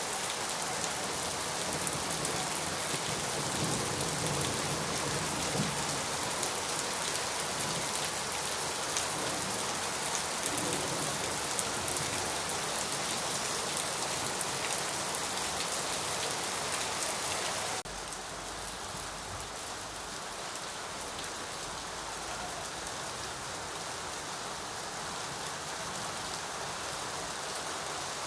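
Steady rain falling, an even hiss of many drops. About two-thirds of the way through it changes abruptly to a slightly quieter, duller rain with a low rumble underneath.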